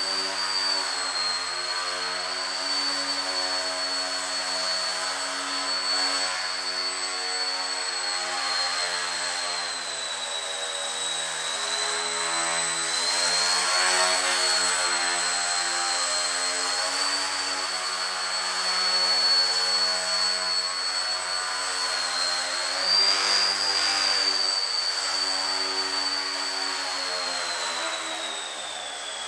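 Electric motor and propeller of a Breeze Pro FP3 indoor foam RC plane whining continuously, its pitch and loudness rising and falling with the throttle.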